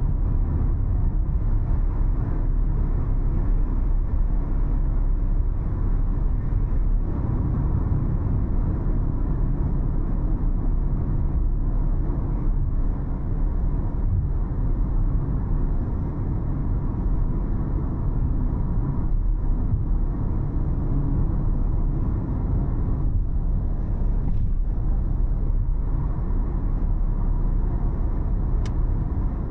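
Car driving at a steady pace: a continuous low rumble of engine and tyre noise on the road.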